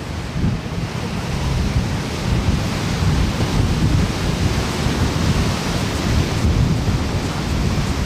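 Ocean surf breaking on a sandy beach: a steady rush of waves over a deep rumble.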